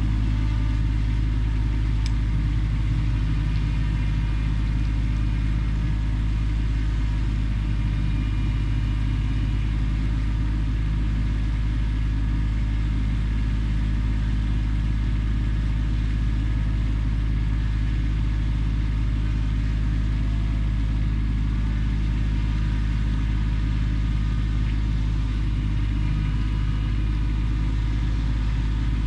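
Kubota tractor's diesel engine running steadily at a constant speed, with a deep low rumble.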